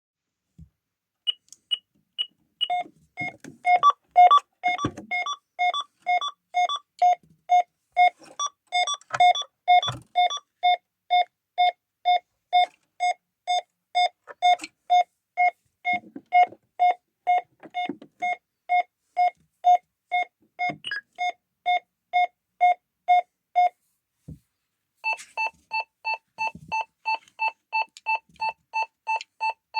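ADE Optima Mk7 burglar alarm panel beeping through its built-in speaker and an Elmdene extension speaker: a steady run of short beeps, about two a second, with quicker, higher beeps mixed in for several seconds early on. After a pause of about a second, the beeps resume at a higher pitch.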